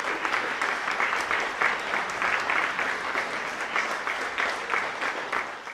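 Audience applauding, many hands clapping steadily; the applause fades out at the very end.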